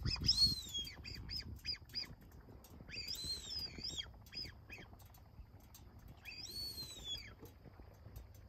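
Birds calling overhead: three bouts of high, arching squeals, each followed by short repeated notes, over a steady low rumble. The first bout is the loudest.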